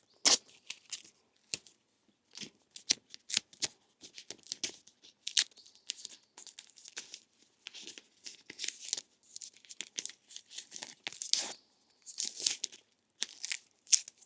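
Adhesive tape being pulled off the roll and wound around cables, a long run of short, irregular ripping strokes.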